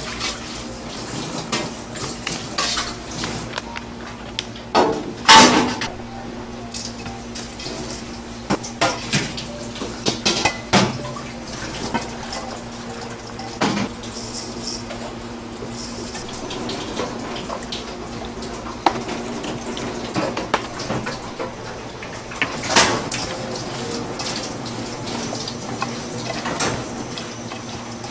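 Restaurant kitchen clatter: dishes and utensils clinking and knocking at irregular moments, the loudest about five seconds in, over a steady hum.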